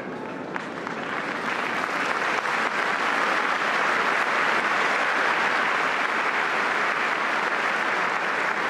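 Large crowd applauding, swelling over the first two seconds and then holding steady.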